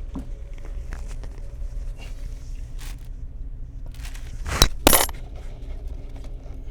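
Rustling and small clicks of a framed picture being wrestled off a wall, with two sharp knocks in quick succession about four and a half seconds in, over a steady low hum.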